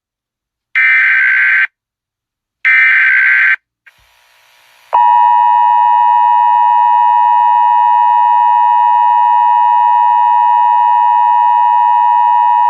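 Emergency Alert System SAME header: two one-second bursts of warbling digital data, a second apart. After a short pause the EAS attention signal follows, a loud steady tone of about eight seconds, announcing a child abduction emergency (Amber Alert).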